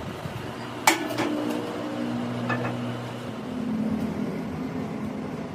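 A sharp click about a second in, followed by a steady low mechanical hum whose pitch shifts slightly partway through.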